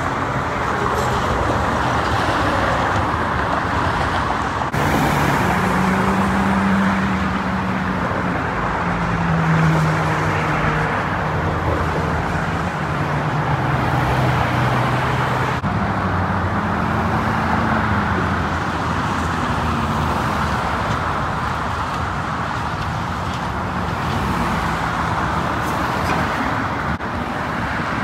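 Road traffic: cars driving past on a multi-lane road, a steady hiss of tyres with engine hum that rises and falls as vehicles go by.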